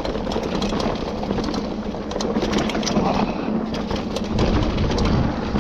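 Mountain bike rolling fast down a dirt trail: a steady rumble of tyres on the ground with a constant rattle of small clicks and clatters from the bike over bumps.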